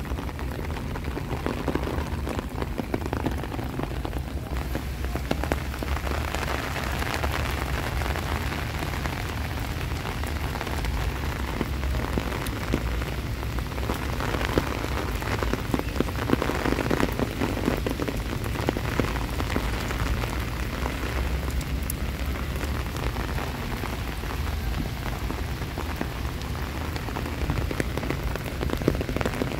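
Steady rain falling, a dense patter of drops over a constant low rumble.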